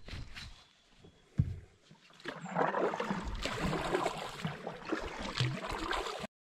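Canoe being paddled with a kayak paddle: water splashing and swishing from the paddle strokes, starting about two seconds in and running until the sound cuts off suddenly near the end. A single sharp knock on the canoe comes just before the splashing starts.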